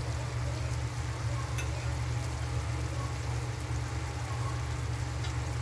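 A pot of seasoned rice bubbling and sizzling as it cooks down, with a few faint ticks over a steady low hum.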